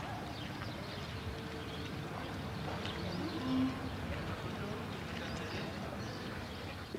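Faint, steady background ambience with scattered faint ticks and a short low tone a little past halfway through.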